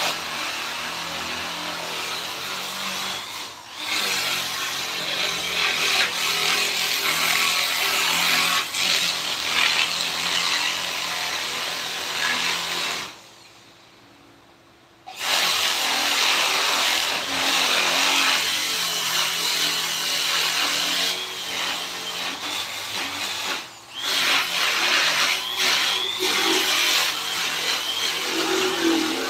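A hand-held power tool working wood, a steady noisy whir of grinding or sanding. It breaks off briefly about four seconds in, stops for about two seconds near the middle, and dips again briefly later.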